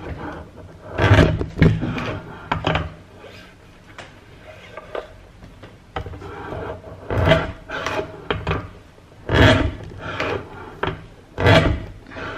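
Lever-operated corner-rounding punch press cutting the corners off printed card pin backing cards: about six short sharp strokes of the lever and die, bunched in pairs in places and a few seconds apart in others.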